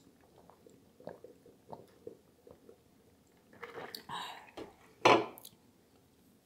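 Close-miked mouth sounds of someone sipping a drink through a straw and then eating: small wet clicks and swallows, a few louder wet mouth noises about four seconds in, and one short loud sharp sound just after five seconds.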